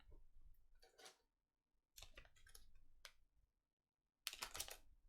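Faint clicks and rustles of trading cards being handled and slid through the hands, in short bouts with a pause, then a louder flurry near the end.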